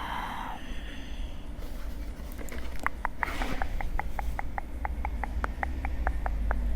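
Light, rapid tapping: a run of about twenty evenly spaced clicks, five or six a second, each with a slight ring, starting about three seconds in. A low steady hum lies beneath.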